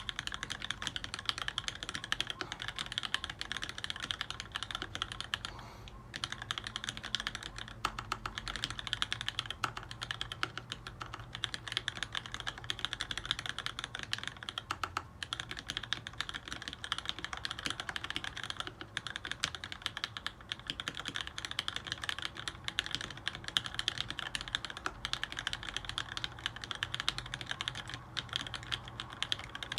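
Continuous fast typing on an LZ-ergo split mechanical keyboard with lubed Wyse black linear switches on 55 g springs in an aluminium plate, a dense run of keystrokes with a brief pause about six seconds in.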